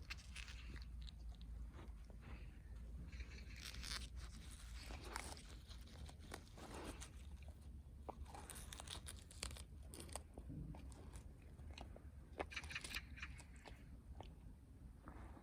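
A dog tearing off and chewing grass, with irregular crunching and chewing sounds.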